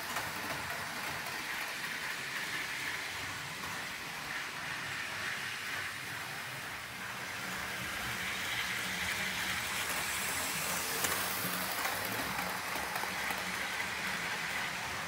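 OO gauge model trains running round the track: a steady whirr of small electric motors and rattle of wheels on the rails, growing a little louder about halfway through.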